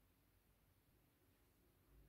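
Near silence: faint room tone between spoken sentences.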